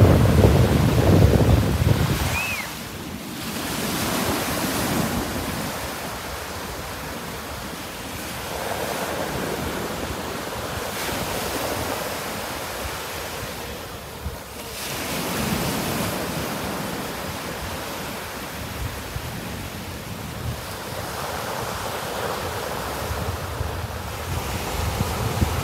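Small surf waves breaking and washing up a sandy beach in slow swells, with wind buffeting the microphone, heaviest in the first couple of seconds.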